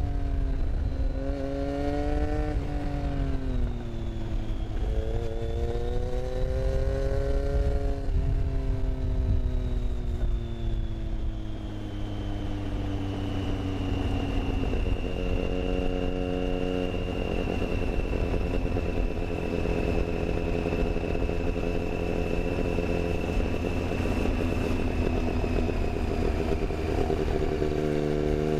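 Motorcycle engine heard onboard while riding, its pitch rising and falling with the throttle through the first half, then running steadier at a lower, even pitch.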